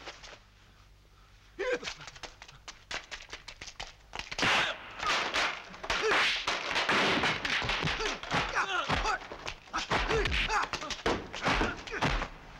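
Fight sound effects: a quick run of punch and kick impacts, then from about four seconds in a long, loud clattering crash as bamboo scaffolding poles are smashed and collapse, with heavy thumps mixed in.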